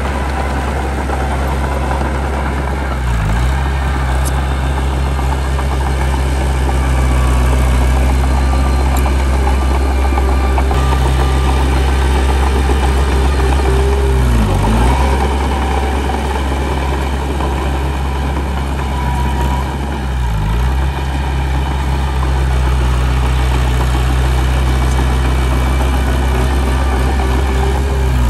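Heavy diesel earthmoving machinery running steadily, a deep engine drone with a brief waver in the low hum a few times.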